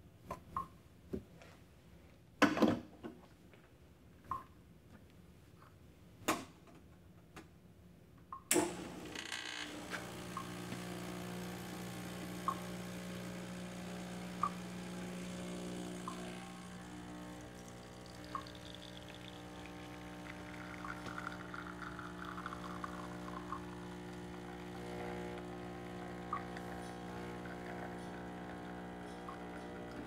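Clicks and knocks of an espresso portafilter being handled and locked into the group head, then, about eight and a half seconds in, a click as the Diletta Mio's vibration pump starts. The pump hums steadily while a shot of espresso pours into a glass.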